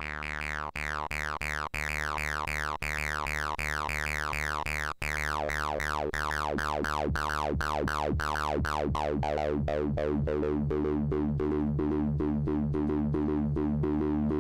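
Akai Rhythm Wolf analog synth voice playing a fast, even run of repeated notes at one pitch. Each note starts bright and quickly turns dull, and the tone grows duller overall in the second half.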